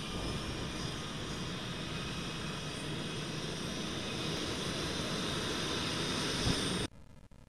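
HondaJet's twin GE Honda HF120 turbofan engines running, a steady rushing sound with a high whine on top. The sound cuts off abruptly near the end.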